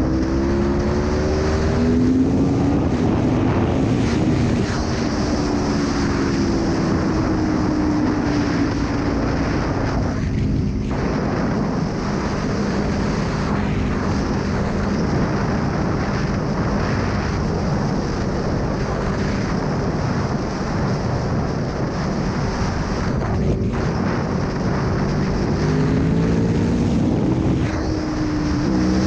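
Aprilia Tuono V4 1100's V4 engine pulling under way, its note climbing near the start and again near the end and holding fairly steady in between, over a constant rush of wind and road noise.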